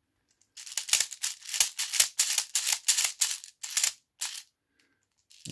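Airsoft speed loader being pumped to push plastic BBs into a pistol magazine: a quick run of short rattling clicks, about four a second, with the BBs shaking inside at each stroke, stopping a little after four seconds.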